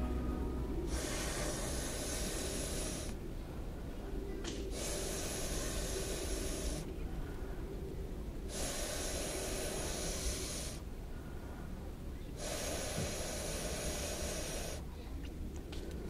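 Four long breaths blown through a metal fire-blowing pipe into glowing charcoal in a shichirin grill, each about two seconds long with short pauses between: stoking a weak charcoal fire to raise the heat.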